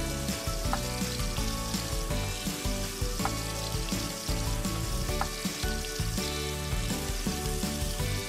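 Battered paneer cubes deep-frying in hot oil, a steady sizzle as they turn golden and crisp, with a few light clicks of metal utensils in the pan.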